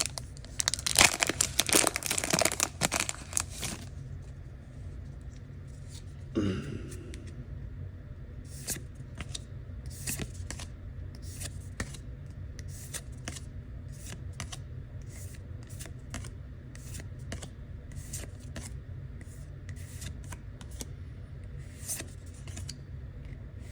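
A foil trading-card booster pack being torn open and crinkled for the first few seconds. Then the cards are slid off the stack one at a time, a light flick about once or twice a second, over a steady low hum.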